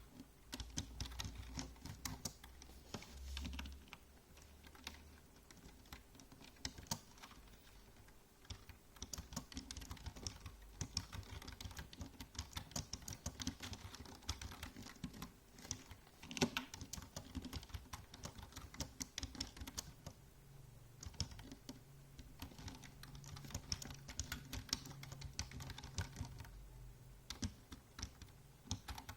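Typing on a computer keyboard: quick, irregular key clicks in runs, with a couple of short pauses.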